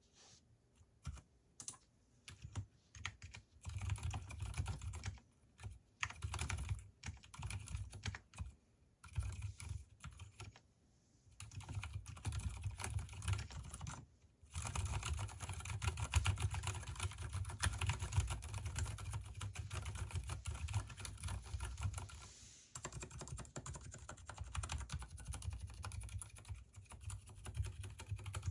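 Typing on an Mstone Groove T mechanical keyboard with Gateron silent brown switches and lubed stabilizers: a few scattered keystrokes, then bursts of typing, then fast continuous typing from about halfway.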